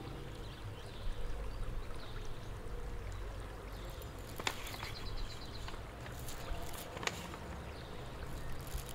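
Small green gift box being handled and opened in the hands: faint rustling and a couple of sharp clicks, about halfway through and again near the end, over a steady outdoor background hiss.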